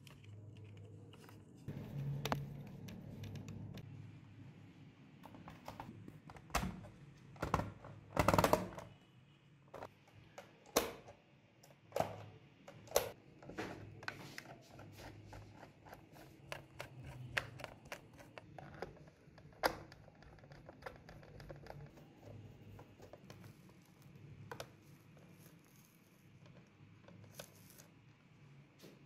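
Irregular clicks and knocks of hard plastic as a toy cassette player's case is handled and screwed back together with a screwdriver, with the loudest clatter about eight seconds in.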